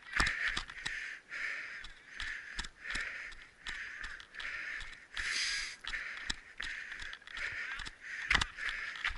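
A person breathing hard in a steady rhythm while exercising, each breath a short rush of air about every half second to a second, with scattered knocks and clicks throughout.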